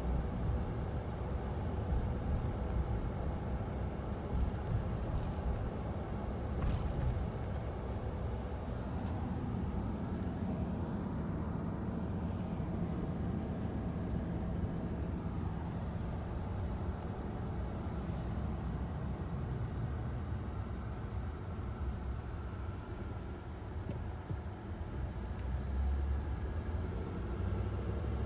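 Steady low rumble of engine and road noise inside a moving car's cabin, with a brief click about seven seconds in.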